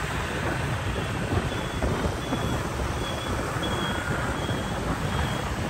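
Wind rumbling on the microphone of a moving motorbike, over the steady noise of scooter traffic and the road. A faint high beep repeats about every 0.7 seconds.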